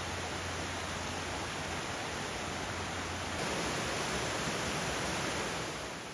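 Rushing water of a small waterfall and whitewater cascade pouring over rock, a steady hiss. It gets a little louder just past halfway, then begins to fade at the very end.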